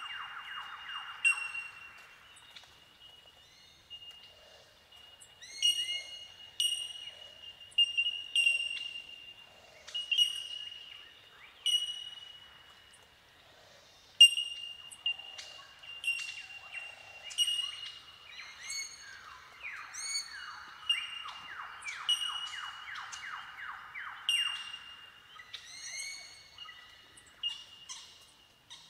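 Bell Miners (bellbirds) calling: a chorus of clear, ringing bell-like 'tink' notes, one every second or so from overlapping birds. A fast run of lower, falling notes joins in near the start and again about twenty seconds in.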